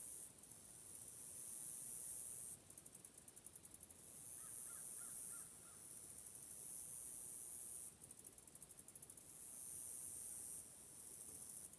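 A high-pitched insect chorus that switches every few seconds between a steady buzz and a fast pulsing trill. Near the middle, a short run of about six quick bird-like calls.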